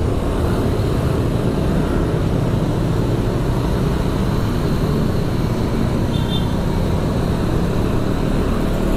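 Motorcycle engine running steadily at low speed in dense scooter traffic, with a steady rush of road and wind noise. A brief faint high tone comes about six seconds in.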